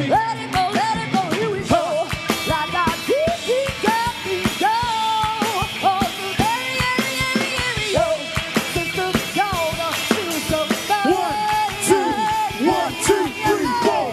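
Live pop and hip-hop band playing through a PA system, with a steady drum beat under a sung vocal line that glides up and down.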